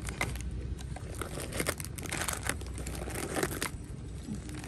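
Plastic snack wrappers crinkling and rustling in quick, irregular crackles as they are handled.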